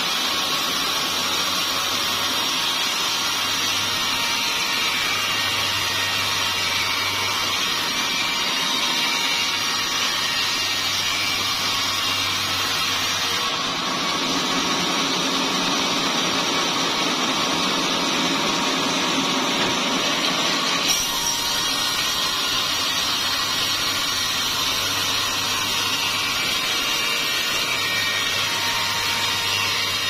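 Sawmill saw cutting through a small-leaf acacia log, a steady noisy running sound. For several seconds in the middle its tone shifts, with more low rumble.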